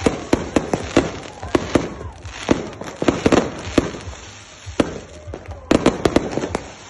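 Fireworks going off: a rapid, irregular series of sharp bangs and pops, with a dense cluster of bursts about six seconds in.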